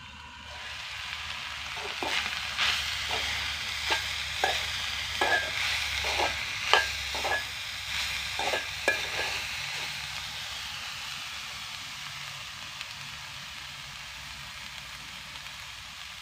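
Winged bean stir-fry sizzling in an aluminium pot while a metal spoon stirs it, scraping and clinking against the pot about a dozen times in the first half. After that only a steady sizzle remains.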